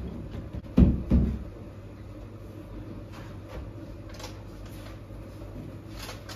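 Two dull wooden knocks about a second in, from dough and a rolling pin being handled on a wooden pastry board while making gözleme. After them comes a steady low hum with a few faint light clicks.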